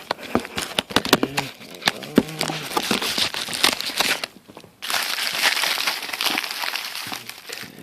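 Plastic bag and packaging crinkling and rustling as it is pulled open, with a stream of small clicks and crackles; it pauses briefly about halfway, then carries on more steadily.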